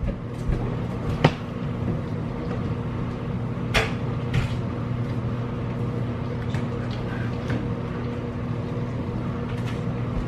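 Kitchen cabinet doors and things on the shelves knocking and clicking a few times, sharpest near the start and around four seconds in, over a steady hum from a running dishwasher.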